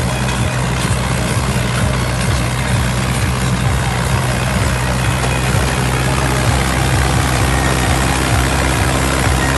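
Mahindra 475 tractor's four-cylinder diesel engine running steadily while pulling a fully loaded trolley, a low, even drone.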